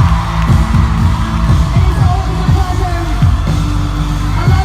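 Live pop music played loud through a concert sound system: a deep, pulsing bass drum under sustained synth tones, with a sung vocal line coming in about halfway.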